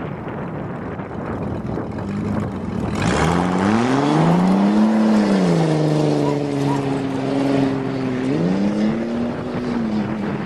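1982 Toyota Cressida's engine pulling while driving. Its note climbs about 3 s in, drops back about 5 s in as if on a gear change, holds steady, then climbs again near 8 s and eases off, over wind and road noise.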